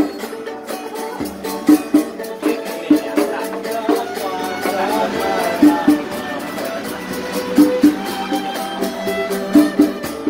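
Street musicians playing a song live: a melody over a steady rhythm of light percussion.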